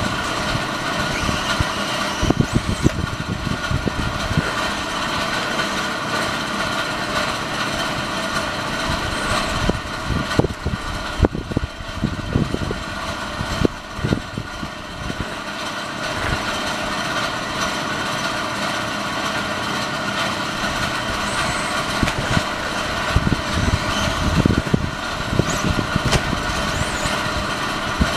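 Electric RC buggy's brushless motor (8.5-turn, on a 2S LiPo) running around a dirt track, a steady mechanical whine and drivetrain noise, with bursts of low thumps a few seconds in, around the middle and near the end.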